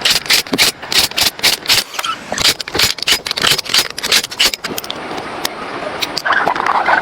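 A fast, irregular run of sharp clicks and knocks, several a second, for about five seconds. It gives way near the end to a steadier rasping scrape.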